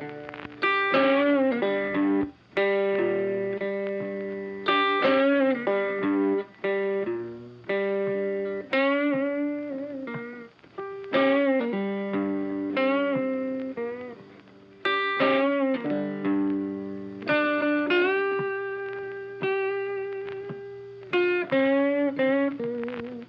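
Background music: a guitar with effects plays a melody of plucked notes with bends and vibrato, repeating a phrase every few seconds.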